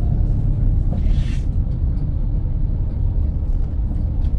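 Steady low rumble of a moving double-decker bus, its engine and road noise heard from inside on the upper deck, with a brief hiss about a second in.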